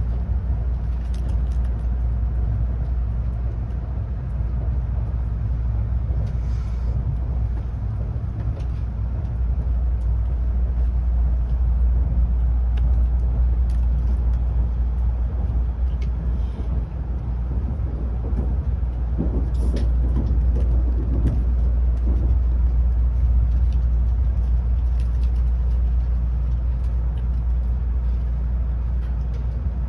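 Steady low rumble of a Tokaido Shinkansen train running at speed, heard from inside the passenger car, with a few faint ticks and rattles.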